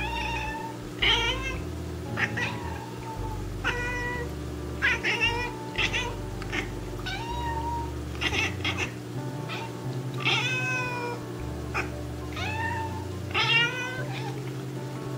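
Japanese bobtail cat meowing over and over in short calls that fall in pitch, about fifteen of them, taken as the breed's 'singing', with quiet background music underneath.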